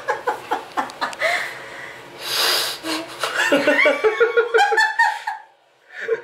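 Laughter in short pulsing bursts, with a short hiss about two and a half seconds in.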